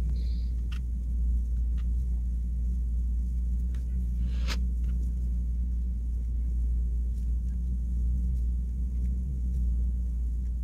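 Steady low hum, with a few faint clicks of wooden knitting needles scattered over it; the clearest click comes about four and a half seconds in.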